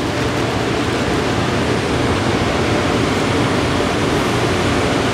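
A steady, even rushing noise with no distinct events, like outdoor wind or traffic noise on the microphone.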